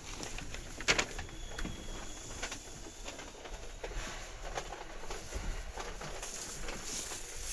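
Cabin of a Seibu 2000 series electric train standing at a station: a low steady hum with scattered light clicks and knocks, the sharpest about a second in.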